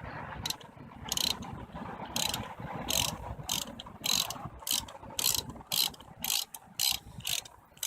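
Thread tap being turned into a drilled-out exhaust-manifold bolt hole to recut its threads, worked in short strokes of the wrench that click and scrape about every half second.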